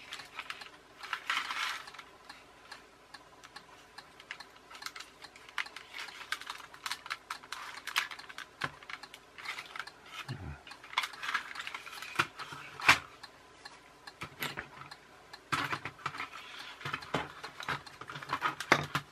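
Small screwdriver blade clicking and scraping against a plastic RC-car gearbox housing as its snap-together clips are pried apart: scattered light plastic clicks and taps, with one sharper click about thirteen seconds in.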